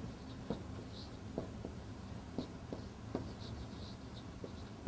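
Marker writing on a whiteboard: a string of short taps and brief high squeaks as the tip makes each stroke, over a steady low hum.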